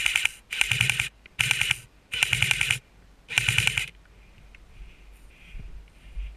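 Airsoft electric gun firing five short full-auto bursts in the first four seconds, each under a second of rapid clicking shots, the last two slightly longer.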